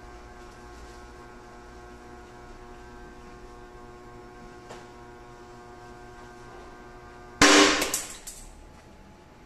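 Tensile testing machine running with a steady hum while it pulls a stainless steel worm-drive hose clamp. About seven seconds in, the clamp gives way under load with one sudden loud crack that dies away over about a second.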